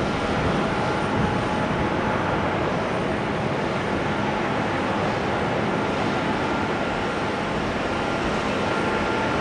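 Boeing 787-9 jet engines running with a steady rushing noise and a faint steady whine as the airliner rolls on the runway for takeoff.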